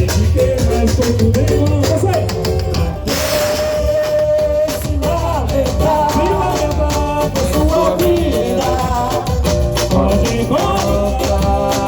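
Samba music with a steady percussion beat and a sung or played melody, and a brief rushing noise about three seconds in.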